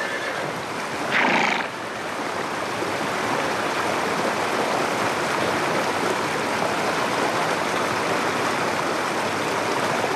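Rushing water of a waterfall, a steady even noise. A brief, louder animal call cuts in about a second in.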